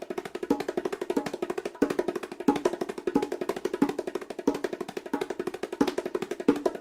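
Percussion loop: a steady pattern of fast, even strokes with a stronger accent about every two-thirds of a second.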